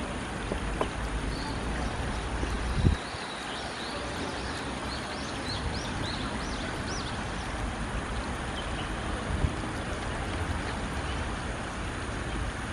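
Steady rush of shallow stream water with a low rumble, over which mallard ducklings give a run of short, high peeps for several seconds starting about a second and a half in. A single dull thump comes about three seconds in.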